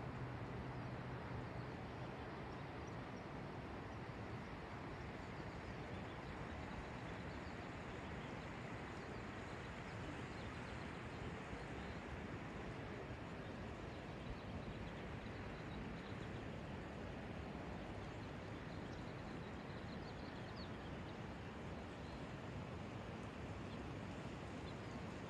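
Steady outdoor ambience: an even rushing noise with a few faint, high bird chirps now and then.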